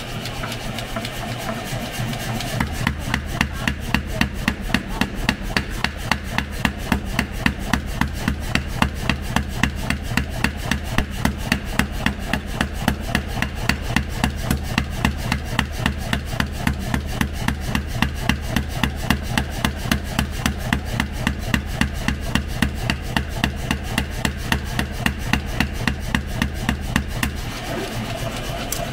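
Even hammer blows on hot steel being forged, about three a second, over a steady machine hum that starts a couple of seconds in and stops with the blows near the end.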